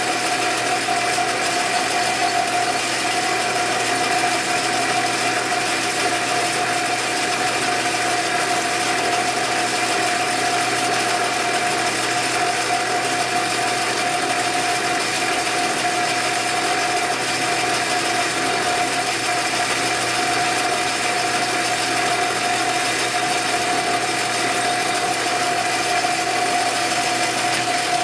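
Metal lathe running steadily with the part spinning in its chuck, its gear train giving a steady whine and a light gear clatter.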